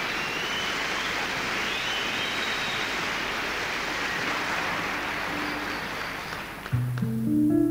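Concert audience applauding, with a few whistles rising through the clapping. The applause dies away near the end, and a jazz guitar and double bass start playing.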